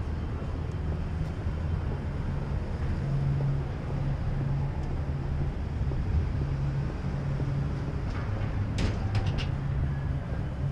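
City street traffic: a steady low engine hum from vehicles on the street, with a few sharp clicks about nine seconds in.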